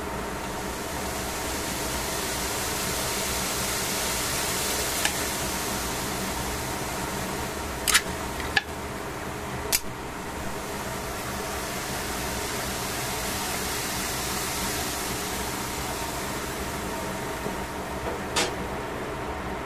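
Shredded cabbage and carrots simmering in a stainless steel pot: a steady hiss that swells and fades twice, over a constant low hum. A few sharp clicks come around the middle and one more near the end.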